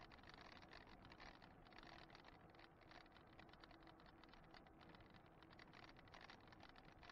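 Faint, fast, uneven rattling and clicking from a moving e-bike on a paved road, over a faint steady hum.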